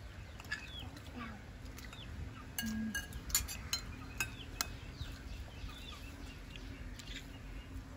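Scattered light clinks and taps of kitchenware, with birds chirping now and then over a low steady rumble.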